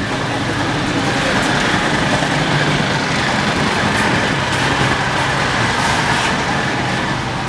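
Machinery running steadily on a building construction site, a continuous loud mechanical drone.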